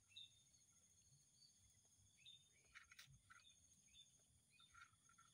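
Faint outdoor ambience: scattered short bird chirps over a steady, high insect drone, with one faint click about three seconds in.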